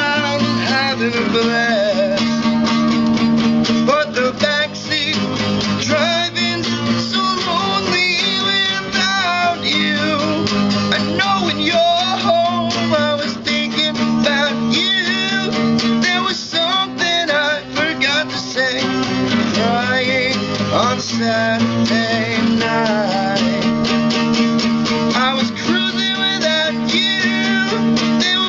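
Acoustic guitar strummed steadily while a man sings along, unamplified.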